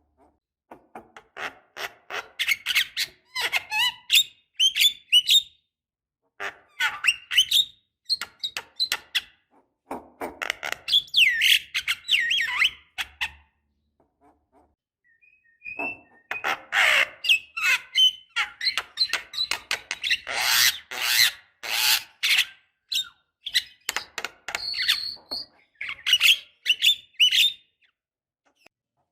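Javan myna singing: phrases of harsh squawks, clicks and chirpy whistles, broken by short pauses, with a longer silent gap about halfway through.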